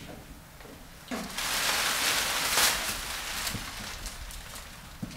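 Clear plastic sheeting crinkling and rustling as it is handled and stretched over a wall. It is loudest from about one to three seconds in, then goes on more quietly with scattered small crackles.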